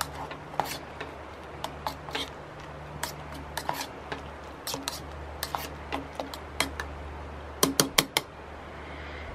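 Metal spoon stirring and scraping inside a small stainless steel camp pot, with scattered clinks against the pot's sides. A quick run of four sharp taps comes near the end, all over a steady low hum.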